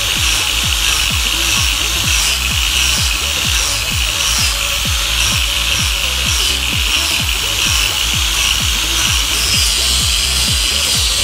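Makita angle grinder with a sanding pad running steadily as the pad rubs along a weathered wooden plank, sanding it down to bare wood. Background music with a steady beat plays over it.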